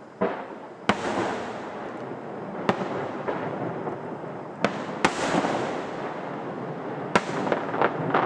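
Aerial fireworks display: about five sharp shell bursts, spread a second or two apart, over continuous crackling, which grows denser near the end.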